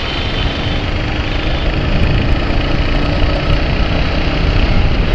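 Royal Enfield Hunter 350 single-cylinder motorcycle running steadily at highway speed, its engine heard through heavy wind rush on the handlebar-mounted action camera.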